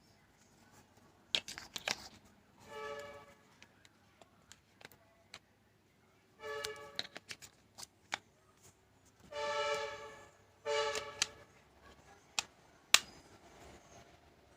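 Sharp plastic clicks and snaps from a small feature phone being handled and closed up after a memory card has been fitted. Four short honk-like tones are also heard, a few seconds apart.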